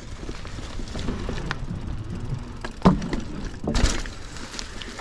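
Mountain bike rolling along a dirt trail: a steady low tyre rumble with rattles and knocks from the bike, and two sharp, loud knocks about three and four seconds in.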